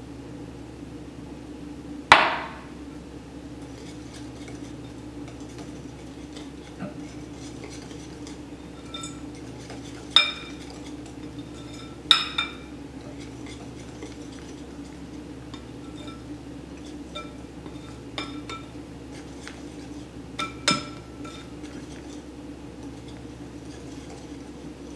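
A metal mesh sieve and wire whisk knocking and clinking against a glass mixing bowl while flour is sifted and whisked into batter. There is one loud knock about two seconds in, then scattered short clinks that ring out, some in quick pairs.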